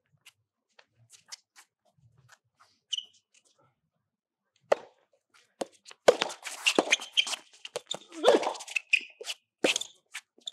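Soft tennis rally on a hard court: a sharp racket hit on the rubber ball about four and a half seconds in, then from about six seconds a quick run of ball strikes and sharp shoe squeaks.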